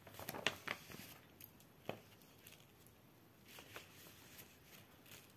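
Faint handling of printed paper cross-stitch chart pages: a few light ticks in the first two seconds, then a soft paper rustle a little after the middle.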